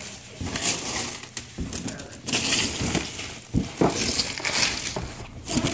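Paper gift bag crinkling and rustling in irregular bursts as a hand rummages inside it, with a few sharp crackles.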